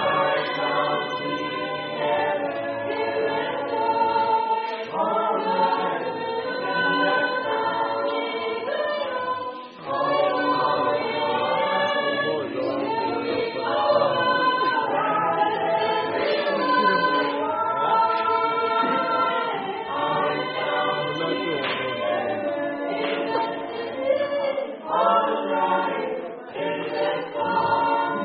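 Gospel vocal quartet singing a cappella, several voices sustaining notes together in harmony, with a brief break in the singing about ten seconds in.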